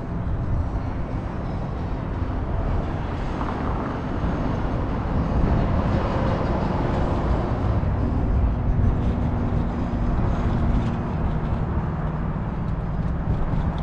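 A car running: a steady low rumble of engine and road noise heard from inside the cabin, growing somewhat louder for a few seconds midway.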